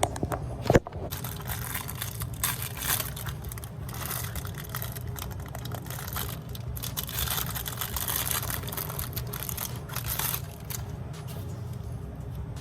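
Microwave oven running with a steady low hum, a sharp clack about a second in, and irregular crinkling and rustling over the hum.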